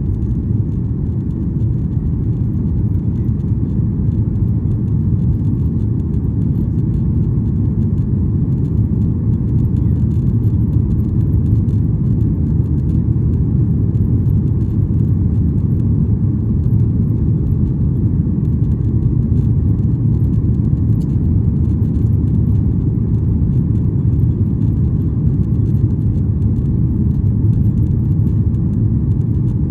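Steady cabin rumble of a Boeing 737-800 in flight or on its run, its CFM56-7B jet engines and airflow heard from a window seat behind the wing. The deep, even roar holds constant throughout, with no rise or fall in power.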